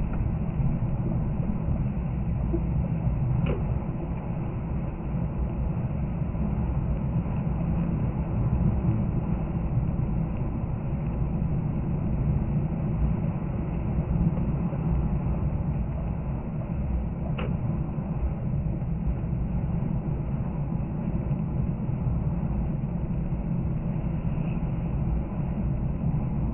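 Car cabin noise while cruising at about 86 km/h on a snow-covered road: a steady low rumble of engine and tyres, with two faint clicks about fourteen seconds apart.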